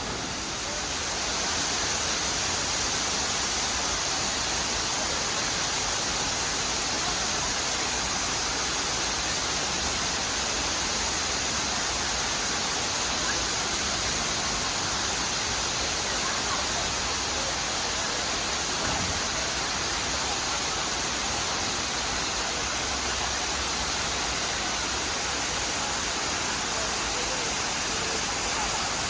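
Steady rush of a man-made waterfall, water pouring down a rock face. It gets louder about a second in and then holds even.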